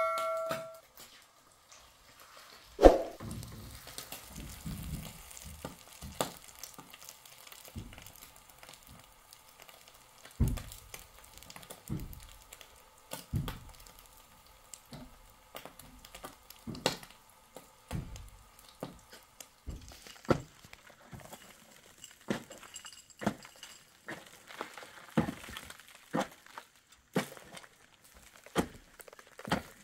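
Irregular knocks and thuds over a faint hiss, with one sharper knock about three seconds in.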